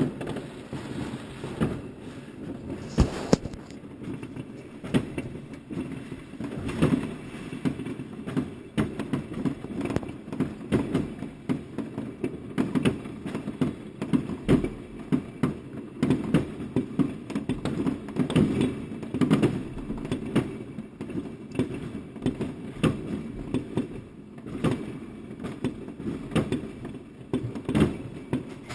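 Fireworks going off all around: a continuous barrage of bangs, near and far, several each second, with louder single bangs standing out now and then over a constant low rumble.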